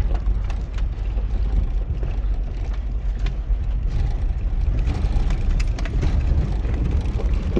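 Pickup truck driving slowly over a rough dirt trail, heard from inside the cab: a steady low rumble of engine and tyres, with scattered knocks and rattles as it goes over bumps.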